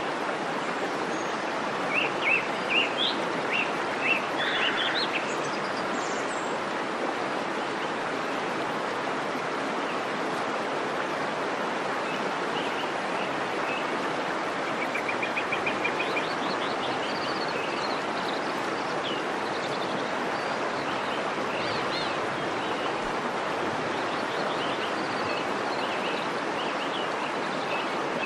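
Waterfall rushing steadily, with birds chirping over it: a cluster of short chirps a couple of seconds in and a quick trill about halfway through.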